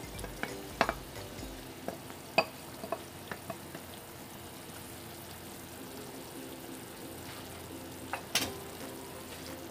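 Sauce simmering in a frying pan with a steady sizzle, broken by a few sharp taps and scrapes as a wooden spatula scrapes tomato sauce out of a plastic container into the pan, mostly in the first few seconds and once more, loudest, near the end.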